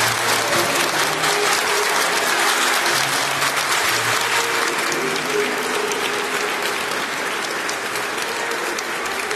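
Audience applauding in a school gymnasium: many hands clapping steadily as a dance ends.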